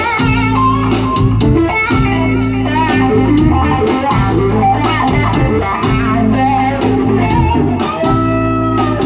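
Blues-style music led by electric guitar over bass and a steady drum beat.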